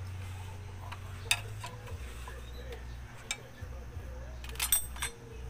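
Light metallic clicks and taps of a steel tool against a Honda Wave 125's primary centrifugal clutch as it is fitted back on: one about a second in, another about three seconds in, and a quick cluster near the end, the loudest of them. A low steady hum runs underneath.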